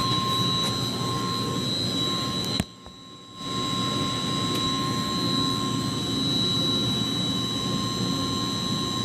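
Steady drone of running machinery in a chiller plant room, with two constant high-pitched whines over a rumbling hum. The whole sound cuts out abruptly with a click about two and a half seconds in, then returns under a second later.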